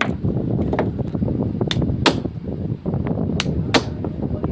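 Sharp knocks struck in pairs, a pair about every second and a half, over a steady low rumble: hand tapping during dismantling of a car's ignition lock cylinder.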